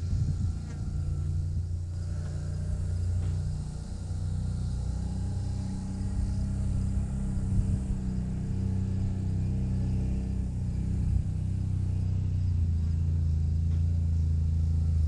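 A motor running steadily with a low hum, its pitch wavering slightly in the middle.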